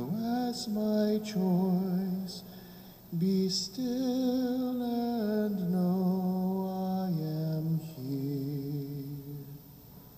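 A single voice singing slowly, with long held notes and a slight vibrato, stopping near the end.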